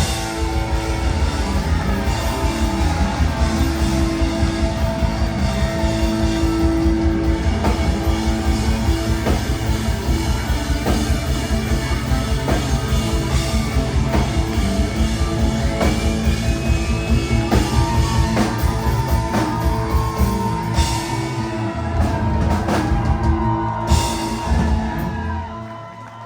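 Rock band playing live with a drum kit and electric guitars at full volume. The music falls away in the last second as the song ends.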